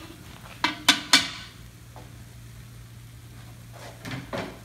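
A long metal stirring paddle knocked three times against the rim of a large black jambalaya pot, sharp clanks about a quarter second apart, followed by a steady low hum and two lighter knocks near the end.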